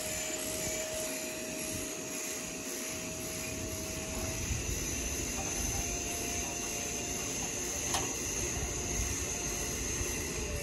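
A distant motor droning steadily with a faint high whine, its pitch starting to fall near the end. A single sharp click about eight seconds in.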